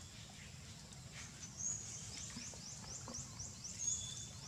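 Small bird calling: a run of about seven quick falling chirps, about four a second, starting about two seconds in, with a few thin high whistles around it.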